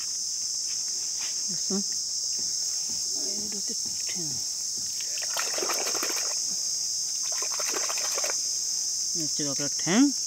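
Steady, high-pitched insect chorus of the mangrove forest, with faint voices now and then and a short louder voice near the end. In the middle, two stretches of wet sloshing as hands work in the watery mud of a crab hole.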